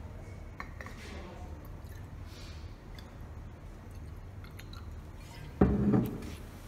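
Ethanol poured from a glass bottle into a glass graduated cylinder: a faint trickle with a few small clinks. About five and a half seconds in, a single loud thump as the heavy bottle is set down on the bench.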